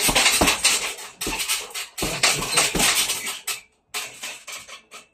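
Rapid flurries of gloved punches thudding into a hanging heavy bag, with a metallic clatter from the bag's stand and hanging hardware. The punching stops about three and a half seconds in, leaving a few light knocks.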